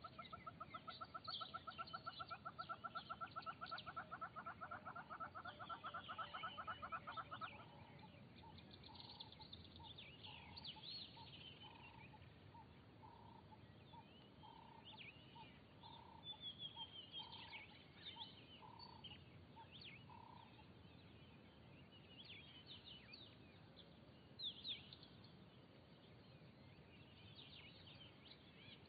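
Faint bird calls in the bush. A fast, rattling trill runs for the first seven or so seconds, then a slow string of short, evenly spaced single notes follows until about two-thirds of the way through. Scattered high chirps and twitters from other birds run throughout.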